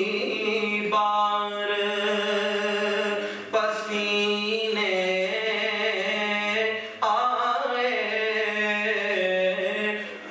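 A man's solo voice in melodic devotional recitation, unaccompanied, sung into a microphone: long drawn-out phrases with bending, held notes, each breaking off after about three seconds before the next begins.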